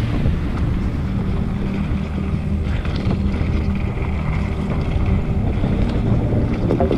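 Wind buffeting the camera microphone and a mountain bike rattling over a dirt trail, with a few knocks near the middle and at the end. A steady deep electronic bass runs underneath.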